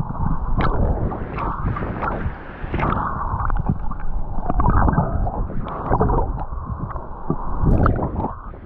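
Muffled, irregular water sloshing and gurgling, with scattered knocks.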